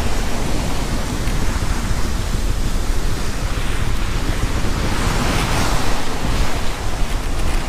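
Sea water rushing and breaking along the hull of a sailboat under way, with wind buffeting the microphone in a heavy low rumble.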